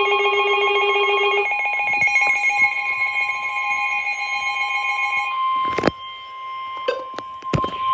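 Alerts from an Alert Works EAR-10WH and a Midland WR400 weather radio sounding together for a severe thunderstorm warning: layered, pulsing electronic alarm tones for about five seconds, then a single steady tone, the NOAA Weather Radio warning alert tone, with three sharp clicks over it near the end.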